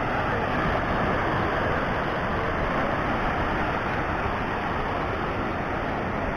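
Small waves breaking and washing up onto a sandy beach: a steady rushing noise with no distinct events.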